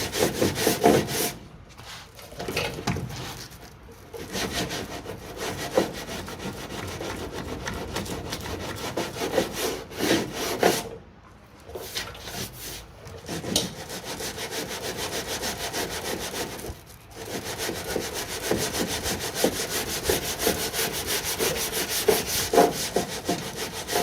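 80-grit Abranet mesh abrasive on a hand sanding block rubbed back and forth over hardened body filler on a car door sill, in quick rasping strokes broken by a few short pauses.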